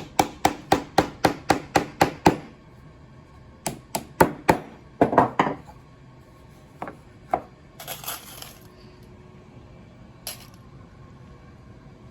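Hammer tapping nails into wood: a quick even run of about four taps a second for two seconds, then shorter groups of harder taps, a brief scraping rustle, and one last single tap. The nails sit in pre-drilled pilot holes, so they go in with light taps.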